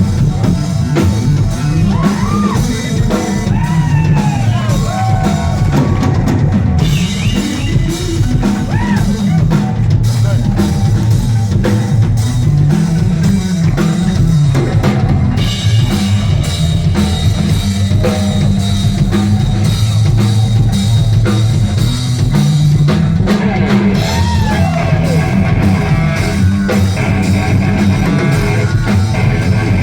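A live instrumental rock band playing loudly: a full drum kit with cymbals driving under bass and a lead electric guitar whose notes bend and slide in pitch.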